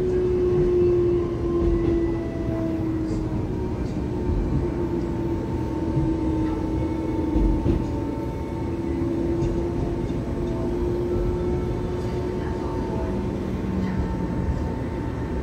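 Cabin sound of an EMU700-series electric commuter train running: a steady electric whine from the traction equipment over the rumble of the wheels on the track, as the train nears a station.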